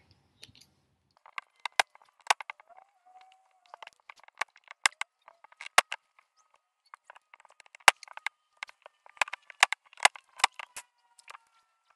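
Scissors cutting through wooden popsicle sticks: a string of sharp, irregular snaps, a few loud cracks among many lighter clicks.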